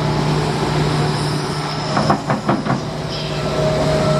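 Heavy construction machine's engine running steadily, with a quick run of about five clanks about two seconds in.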